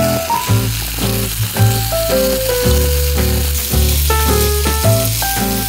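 Beef sizzling on a small grill pan over a mini fire pit, with a steady frying hiss. Background music plays over it: a melody of distinct plucked-sounding notes over a bass line.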